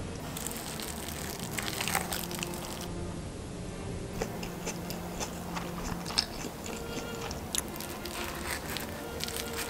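Someone biting into and chewing folded vegetable gimbap: irregular crisp crunches of the seaweed wrap and crunchy carrot.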